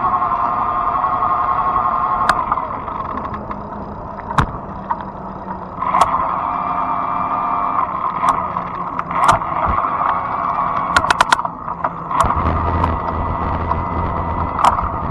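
Fat-tire e-bike rolling along, with a steady whining hum that drops away for a few seconds and then comes back, and scattered sharp clicks and knocks from bumps along the way.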